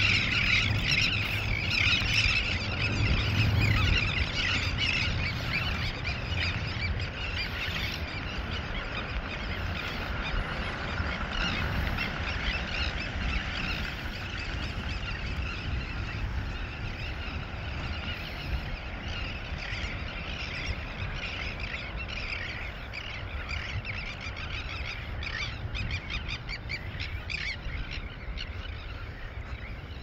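Dense, continuous chorus of calls from a large flock of seabirds, over a low rumble of wind on the microphone. The calling is loudest in the first few seconds and thins out later.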